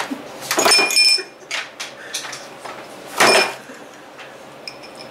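Objects clattering and clinking on a wooden table as a board game is cleared away: a burst of clatter with a short ringing clink about half a second in, smaller knocks, then another burst around three seconds in.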